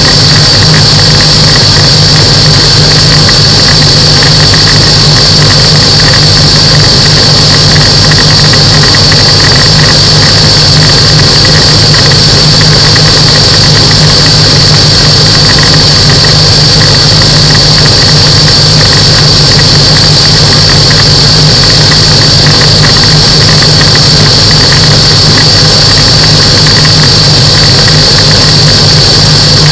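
Microlight aircraft's engine and propeller running steadily, very loud, a constant low drone with a steady high-pitched whine over it.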